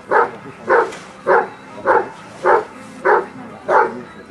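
Briard barking steadily and rhythmically, about one and a half barks a second, at a protection-work helper holding a bite sleeve: the hold-and-bark guarding phase of IPO protection training.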